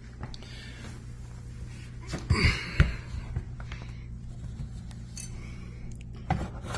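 A few knocks and clinks of objects being handled, loudest about two and a half to three seconds in, with more just before the end, over a steady low hum.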